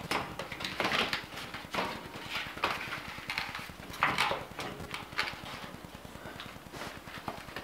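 Replacement air filter scraping and knocking against a return-air vent and its hinged grille as it is pushed into the slot by hand, in irregular short scrapes and taps. The filter does not fit the opening easily.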